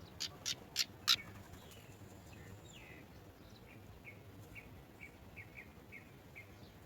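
Birds at a nest calling: four sharp clicks in quick succession in the first second or so, then a string of short, high chirps about every half second.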